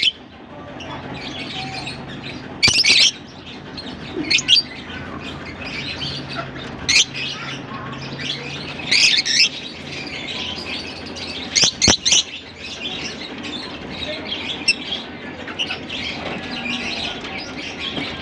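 A flock of lovebirds chattering and chirping steadily, with short, loud, shrill calls breaking in every couple of seconds.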